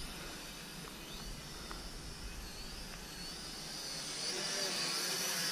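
Small toy quadcopter drone's propellers buzzing with a high whine that wavers up and down in pitch, growing louder over the last couple of seconds. The drone is straining against a wind that is too strong for it to fly into.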